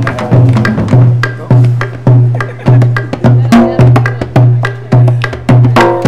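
Bullerengue drumming: wooden sticks clacking on a rope-tensioned drum, over a deep drum beat about twice a second and a hand-played skin drum.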